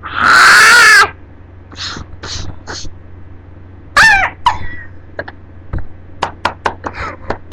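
Girls' voices imitating animal noises: a loud hoarse shriek in the first second, three short breathy huffs, a squealing call about four seconds in, then a quick run of short squeaks and clicks near the end.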